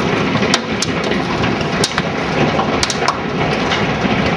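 Golf-ball-sized hailstones pelting down in a heavy storm: a dense, loud patter with sharp cracks of individual stones striking hard, the clearest about half a second, two seconds and three seconds in.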